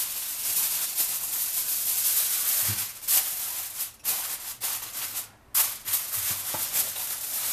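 Aluminium foil crinkling and crackling as hands fold and press it tightly around a glass baking dish to seal it, with a short pause about five seconds in.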